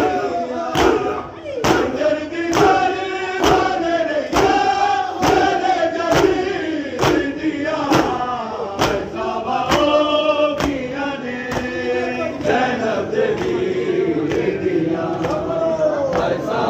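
A crowd of men chanting together in a mourning rhythm while beating their bare chests with open hands (matam), the slaps landing in unison a little more than once a second.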